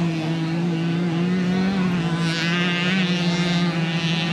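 Several small two-stroke moped engines running together at high revs, holding a fairly even pitch with their buzz overlapping.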